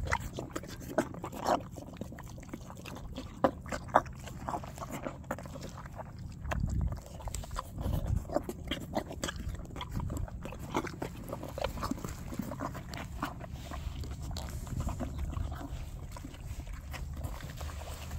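A half-Arabian, half-Tennessee Walker filly foal eating soaked, mushy feed from a plastic feed tub: wet slurping and chewing with many short, irregular clicks and smacks, and a few heavier low sounds around the middle.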